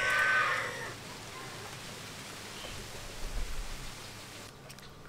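A brief animal call right at the start, then a faint, steady trickle and dripping of water as raw shrimp are handled in a bowl of water, with a few light clicks near the end.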